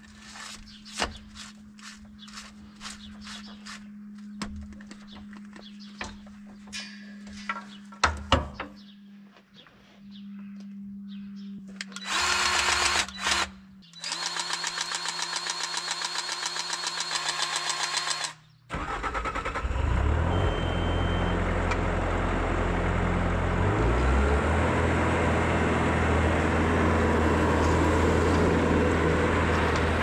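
Cordless grease gun working at the grease fittings of a Bobcat skid steer's loader pivots: clicks and knocks, then the gun's motor running with a rapid, even pulsing. About two-thirds of the way through, the skid steer's diesel engine starts and runs steadily, the loudest sound.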